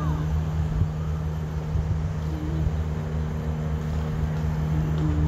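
Steady low hum and rumble of an engine or motor running, unchanging throughout.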